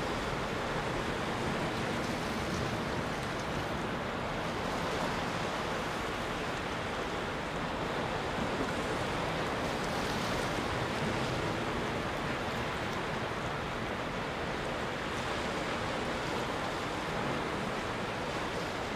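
Sea surf washing over a rocky shore: a steady, even rush of noise with no breaks.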